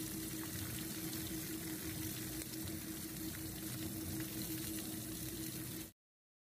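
Small whole fish sizzling and crackling as they pan-fry in hot oil, over a steady hum. The sound cuts off suddenly near the end.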